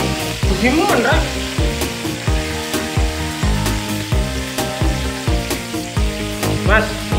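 Slices of tempe frying in hot oil in a wok, giving a steady sizzle. Background music with a steady beat plays over it.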